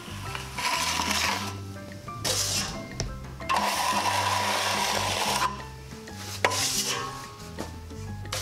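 Steel drywall knife scraping joint compound across a plaster wall in several strokes, the longest about two seconds near the middle, over background music.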